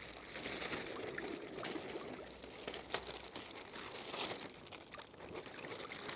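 Plastic bag crinkling and rustling as it is handled, with irregular small crackles.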